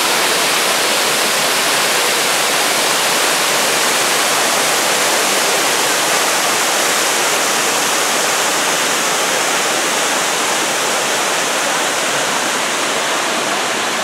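Waterfall: water pouring and cascading over rock ledges, a loud, steady rush of water.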